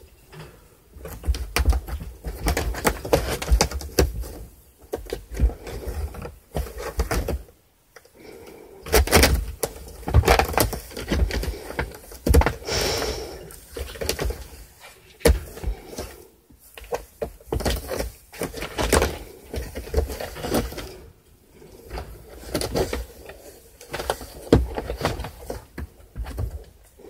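Cat rubbing and rolling on a corrugated cardboard scratcher, the cardboard crackling and rasping under its body in bouts with short pauses, with some low thumps.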